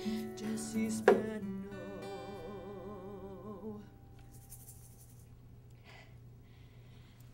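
A woman singing to acoustic guitar accompaniment, a sharp strum about a second in, then a last long note held with vibrato, which fades out with the chord about four seconds in.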